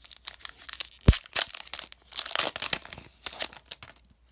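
Foil wrapper of a Pokémon XY Evolutions booster pack being torn open and crinkled as the cards are pulled out, with a short dull thump about a second in and a dense burst of crinkling after two seconds.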